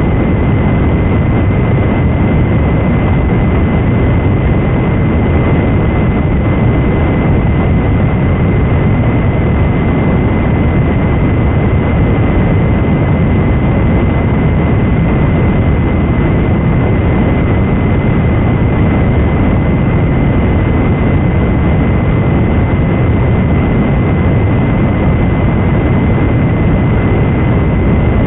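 Loud, steady static noise with a thin, steady high whine running through it, muffled as if heard over a narrow radio or telephone channel, in the audio of a reenacted emergency alert broadcast.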